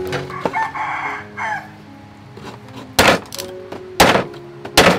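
Meat cleaver chopping raw chicken on a thick round wooden chopping board: three heavy chops about a second apart, the last near the end.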